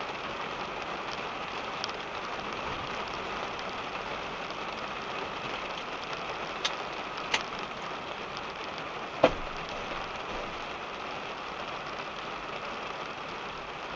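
Steady rain falling on a car, heard from inside the cabin. A few sharp taps stand out from the patter midway, the third the loudest.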